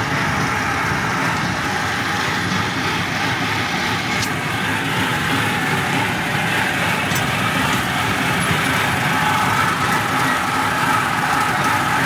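Miniature amusement-park train running steadily, heard from aboard: an even engine and wheel rumble with a faint steady whine above it.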